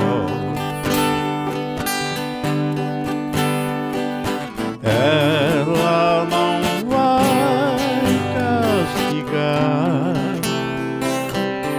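Live sertanejo song played on strummed acoustic strings, with a melody line carrying strong vibrato over the middle part of the passage.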